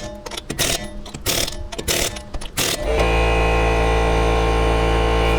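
Sharp knocks and clatter of tools at work on a wheel. About three seconds in, a loud, steady motor hum starts and holds.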